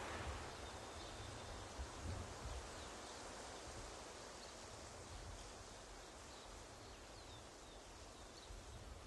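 Faint outdoor ambience: a steady hiss with a low rumble that slowly fades, with a few faint, high bird chirps scattered through it.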